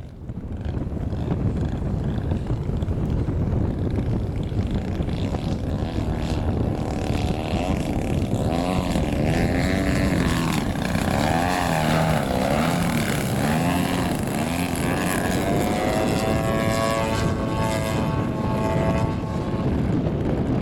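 Radio-controlled aerobatic model airplane's engine and propeller flying overhead, the pitch rising and falling in repeated waves as the throttle is worked through manoeuvres, then holding a steadier, higher drone in the last few seconds. A low rumble of wind on the microphone runs underneath.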